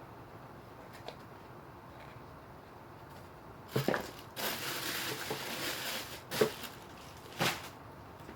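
Shoe-box packaging being handled: a knock about four seconds in, then close rustling and crinkling for about two seconds, and two shorter crinkles near the end.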